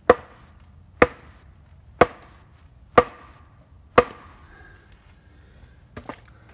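Axe chopping into a wooden stake to point its end: five sharp strikes about a second apart, then two lighter hits in quick succession near the end.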